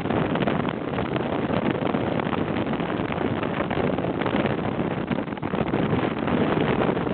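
Motorcycle cruising at steady speed, its engine mostly buried under heavy wind rush buffeting the microphone.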